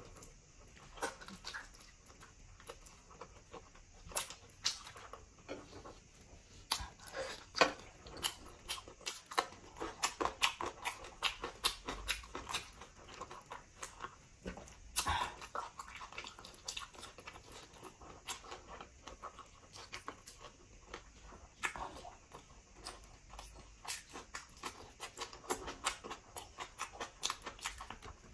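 Eating pork leg by hand: chewing, lip-smacking and the sticky tearing of meat and skin, heard as many irregular wet clicks and smacks.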